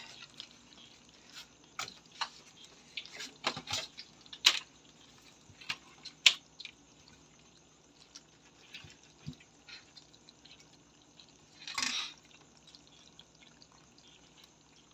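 Wet crabs and fish being handled over a stainless steel sink: scattered sharp, wet clicks and knocks, with a longer wet slap near the end.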